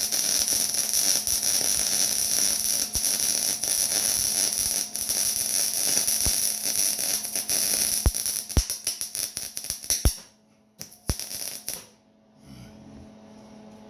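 MIG welding arc crackling steadily as a bead is laid on steel. About eight seconds in the arc begins spluttering and breaks up, stopping about ten seconds in. A brief second burst of arc follows, then only a low steady hum.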